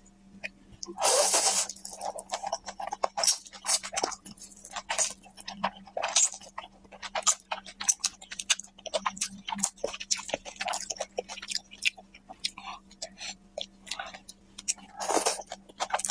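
A person eating noodles: two long, loud slurps, one about a second in and one near the end, with wet chewing and mouth clicks in between.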